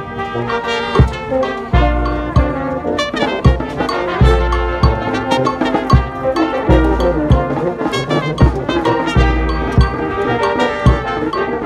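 Brass band playing: trumpets and trombones sounding the tune together over snare drum strokes and a deep bass drum thump every couple of seconds.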